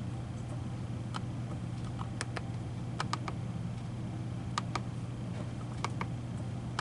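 Keys being pressed on a Brother P-touch label maker's keypad: scattered light clicks, irregularly spaced and sometimes in quick pairs, over a steady low hum.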